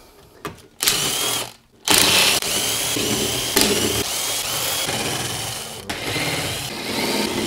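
Cordless drill-driver with a socket spinning out the already-loosened M6 crankcase bolts of a Ducati two-valve engine, its motor whining in several runs. There is a short run about a second in, then longer runs with brief pauses between bolts.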